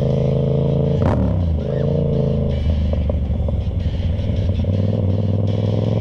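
Yamaha MT-07's parallel-twin engine running on the move at steady revs. About a second in, a gear change: a short clack, and the engine note drops and then picks up again. After that it runs at lower revs with a rougher, less steady note before settling.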